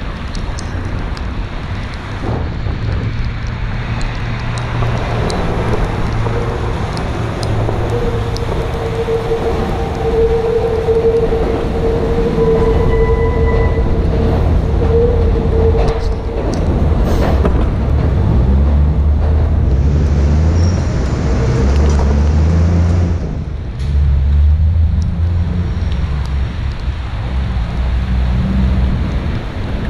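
City traffic heard from a bicycle: the engines of nearby heavy vehicles rumbling and revving, with a steady high whine held for several seconds in the middle.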